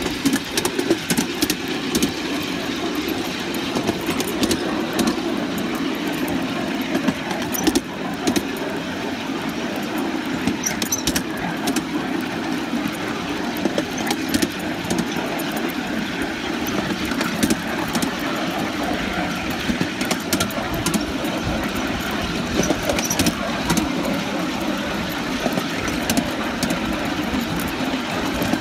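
Coal-fired 3½-inch gauge live-steam model locomotive running on a raised track: a steady running noise of engine and wheels, with frequent sharp clicks.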